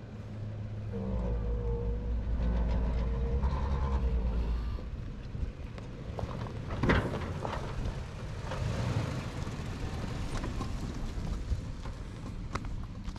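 Four-wheel drive engine labouring at low revs as the vehicle crawls through a rutted dip on a dirt track, with tyres crunching over dirt and twigs and one sharp knock about seven seconds in.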